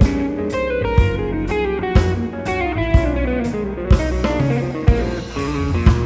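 Jazz-pop quintet playing an instrumental passage: electric guitar lines over double bass, piano and drum kit, with a low drum hit about once a second and a falling run of notes in the middle.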